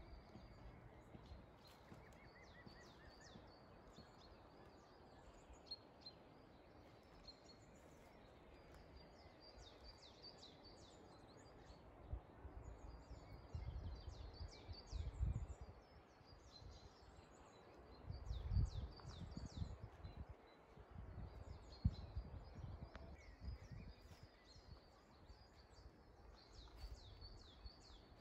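Small birds chirping, with many short falling calls repeating throughout. From about halfway through, low rumbling gusts hit the microphone.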